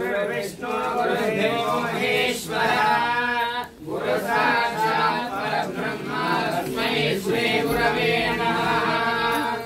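A group of voices chanting a devotional hymn during a puja, with a brief break nearly four seconds in.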